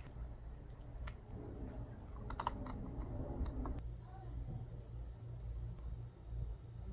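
Light clicks and knocks of plastic PVC conduit and fittings being handled and fitted by hand, clustered in the first half. From about four seconds in, a short high chirp repeats steadily about three times a second, like an insect chirping.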